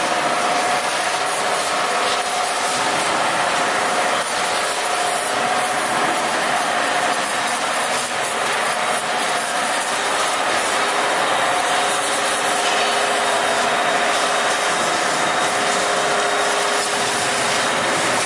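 Steady factory-floor machinery noise: a constant hiss with a faint, even whine running through it.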